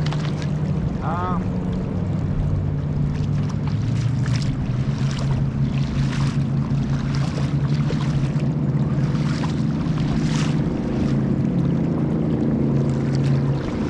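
A low, steady motor hum with a constant pitch, with short splashes or clicks scattered over it. A brief chirp rises and falls about a second in.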